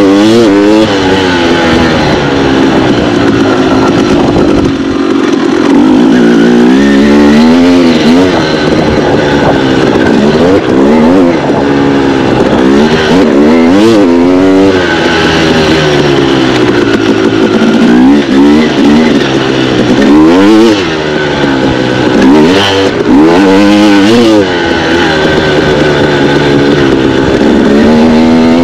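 Single-cylinder two-stroke engine of a 2016 KTM 250 XC dirt bike being ridden hard, its pitch climbing under throttle and dropping back again and again as the rider accelerates, shifts and rolls off.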